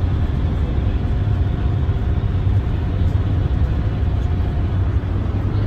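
Steady road and engine noise inside a moving vehicle's cabin at motorway speed, dominated by a low drone.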